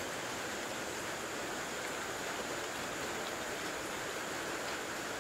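Steady hiss of rain falling, even and unbroken, with a faint thin high tone held above it.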